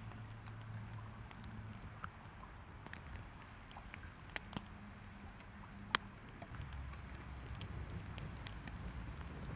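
Steady low hum of electric locomotives standing in a depot, with scattered faint clicks; about six and a half seconds in the hum drops deeper.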